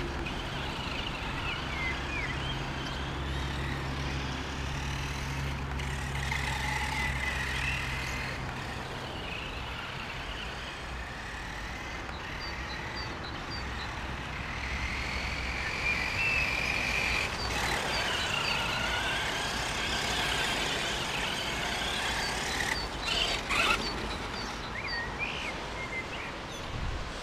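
Helion Dominus 10SC brushed RC short-course truck's electric motor and gears whining, rising and falling in pitch as the throttle is worked while it drives over grass. A few sharp knocks come near the end.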